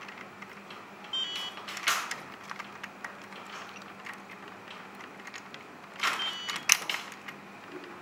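Small metal pins, nuts and bolts clicking and knocking against the metal quick-coupler linkage of a 1/16-scale RC excavator as they are handled and fitted by hand. The clicks come in two short clusters, one about a second in and one about six seconds in, the loudest near the end of the second cluster.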